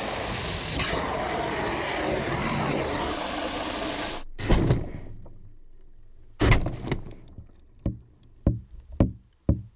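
Water spraying from a garden hose's pistol-grip nozzle into a plastic bucket, a steady hiss that stops suddenly about four seconds in. Then comes a series of about six sharp knocks, the loudest two right after the spray stops.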